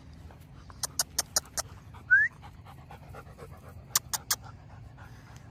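A dog gives one short rising whine, the loudest sound, between two runs of sharp clicks: about five quick ones, then three more.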